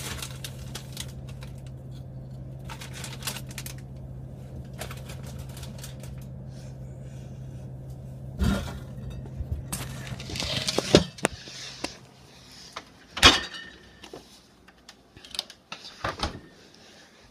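Steady low refrigerator hum with scattered crackles and clicks. From about eight seconds in come knocks and clatter from the camera being handled and lifted out. The hum stops about thirteen seconds in.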